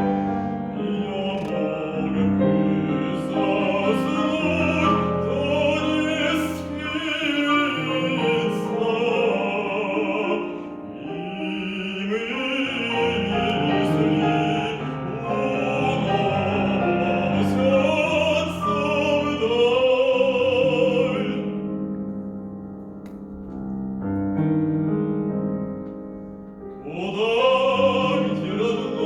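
A male classical singer sings a Russian folk song in operatic style with vibrato, accompanied by piano. The voice breaks off about 21 seconds in while the piano plays on quietly, then re-enters with a rising phrase near the end.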